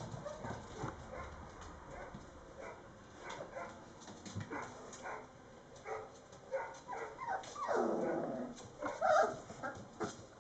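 Mastiff puppies, about four and a half weeks old, padding and scrabbling on a wooden floor with many small clicks, and a puppy crying out about eight seconds in, followed a second later by a louder short cry.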